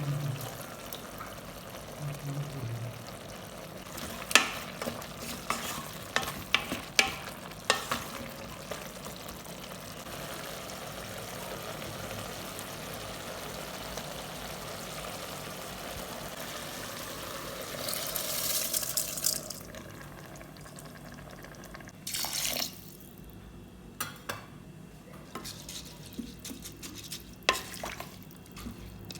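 Food sizzling in a pot while a spoon stirs and clicks against it. Near the end of the sizzle a louder hiss swells briefly, then the sizzle drops away, leaving scattered clinks.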